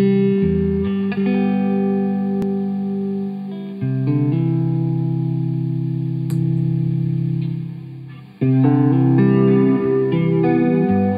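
Electric guitar chords played through a Dr. Scientist Cosmichorus chorus pedal into a Divided by 13 EDT 13/29 tube amp, with the notes wavering slowly. Several chords are struck and left to ring; one long chord fades away before a new chord comes in about three-quarters of the way through.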